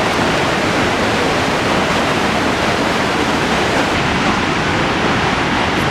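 Muradiye Waterfall in spring flood: a loud, steady rush of falling water.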